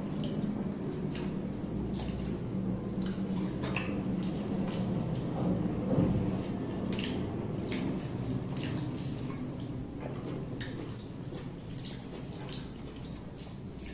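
Close eating sounds: wet chewing, lip smacks and the squish of rice and curry mixed by hand, heard as many short scattered clicks. A steady low hum runs underneath, and a brief louder bump comes about six seconds in.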